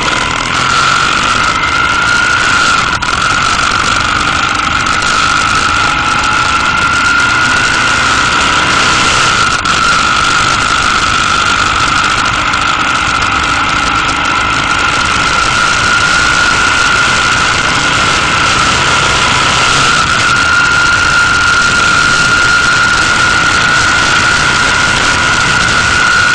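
Motorcycle riding at a steady cruising speed: the engine runs under a constant high whine, with wind noise over the microphone.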